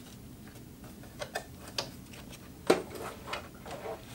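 Scattered clicks and taps of a Singer Heavy Duty sewing machine and a piece of heavy 1000D fabric being handled and set in place before sewing. The sharpest, loudest click comes a little under three seconds in.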